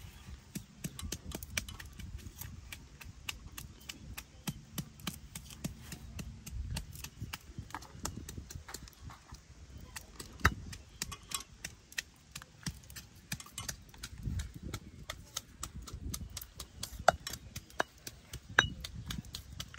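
Stone pestle pounding garlic and red chillies in a stone mortar: a steady run of sharp knocks, several a second, with a few louder strikes.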